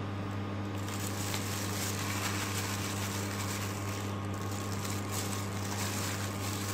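A steady low electrical hum with an even hiss over it, and faint rustling from a plastic-gloved hand rubbing flour onto raw chicken in a metal bowl.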